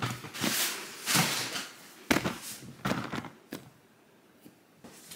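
Handling noise as the camera is moved and set down on a kitchen counter: about half a dozen short rustles and knocks, then a quiet stretch near the end.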